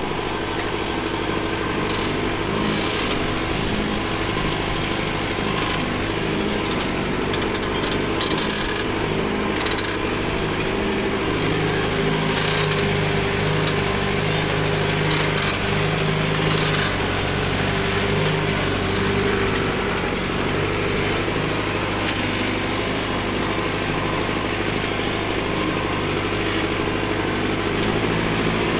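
Kubota MU5502 tractor's 50 hp diesel engine running steadily under load while pulling a plough, with occasional short clicks and knocks over it.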